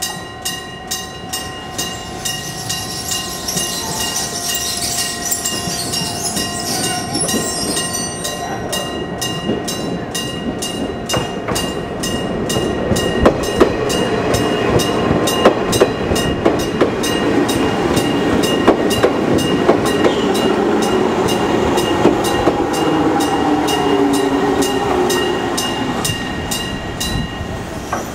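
Electric-bell (denrei-shiki) level-crossing bell ringing in a steady, rapid strike rhythm, with a neighbouring crossing's alarm overlapping. From about a third of the way in, an Izuhakone Railway 3000-series electric train passes: its wheels clack over the rail joints and a motor whine falls in pitch.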